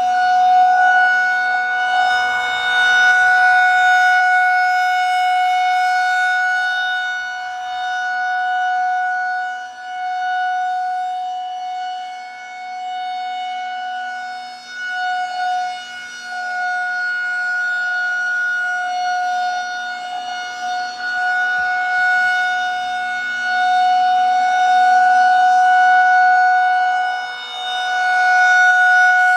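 Federal Signal 2001-130 rotating electromechanical warning siren sounding a steady single tone at full speed. It grows louder and softer as the horn turns toward and away, loudest near the start and again near the end.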